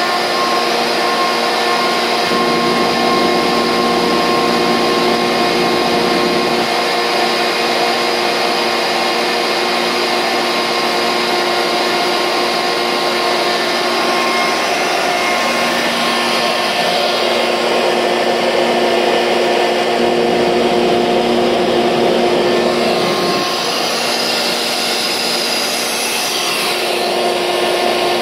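Sullivan Palatek 50 HP rotary screw air compressor, driven by a 480-volt electric motor, running steadily: a loud, even machine noise with several steady whining tones over it.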